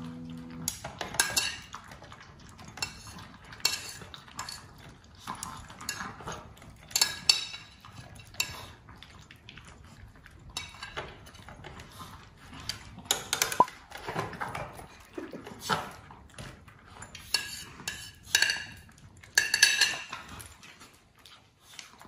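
Small dogs eating from bowls in a raised wooden feeder: irregular clinks and scrapes of the bowls as they lick and chew.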